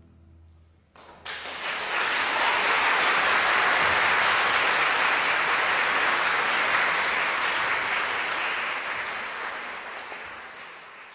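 The final low note of a string orchestra and piano dies away, and about a second in an audience breaks into applause, which carries on steadily and thins out near the end.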